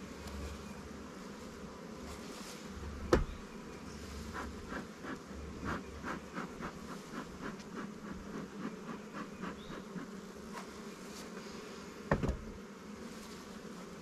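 Honey bees buzzing steadily at an open hive. A sharp knock comes about three seconds in, then a run of quick short clicks at about three a second through the middle, and another knock near the end.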